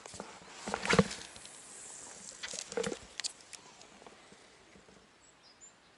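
Spinning rod and reel handled during a cast: a few sharp clicks and knocks in the first three and a half seconds, then faint, steady outdoor quiet.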